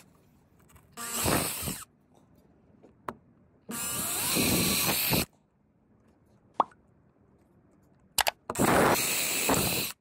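Cordless drill with a 21/64-inch bit boring through a plastic template into a boat's carpeted gunnel, three short bursts about 1 to 1.5 seconds each, the motor whining up at the start of each, with a few sharp clicks in between.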